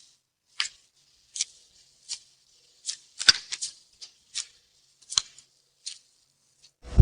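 Sharp, crisp snapping or crunching percussion sound effects, hit roughly in time about one every three quarters of a second, with a louder cluster of quick snaps a little over halfway through. A loud upright bass comes in at the very end.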